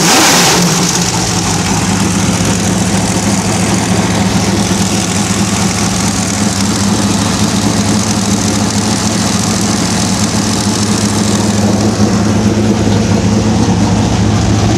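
Race car engine coming down from a rev in the first second, then idling steadily.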